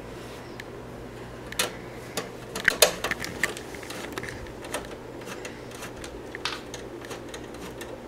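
Scattered light clicks and taps from hands working inside an open desktop computer case, on its sheet-metal frame and cables, over a steady low hum. The loudest clicks come close together about three seconds in.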